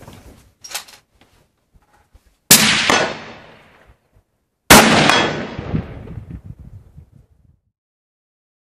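Two rifle shots about two seconds apart, each a sharp crack followed by a long echo that fades over about two seconds.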